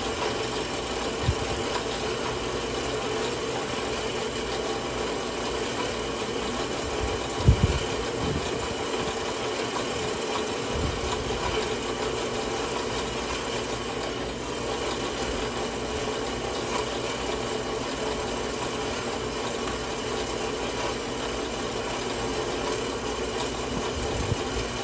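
WEN 4x6 horizontal metal-cutting bandsaw running, its blade slowly cutting through a metal workpiece under flood coolant, a steady mechanical hum. A couple of brief knocks break in, the loudest about a third of the way through.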